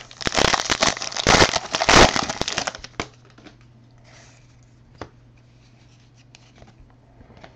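Foil trading-card pack being torn open and crinkled in the hands, a dense crackle for about three seconds, then a few faint clicks as the cards inside are handled.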